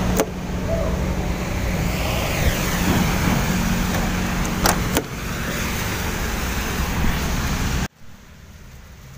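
Car engine idling with a steady low hum, with a few sharp clicks. Near the end the sound cuts off abruptly to a much quieter hum.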